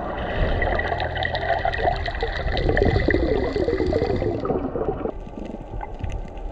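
Underwater bubbling and gurgling water picked up by a submerged action camera as a freediver descends; the sound changes abruptly about five seconds in.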